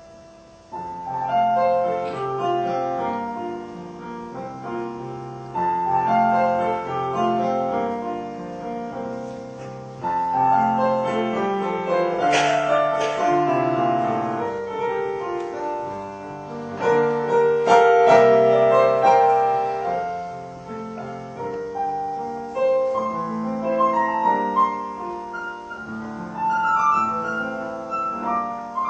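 Solo piano playing a lyrical piece, its phrases swelling and fading, with the loudest passage a little past the middle.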